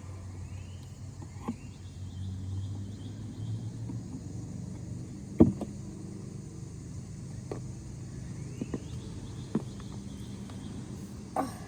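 A car's low engine rumble, swelling as it passes, with scattered small clicks and one sharp knock about five seconds in.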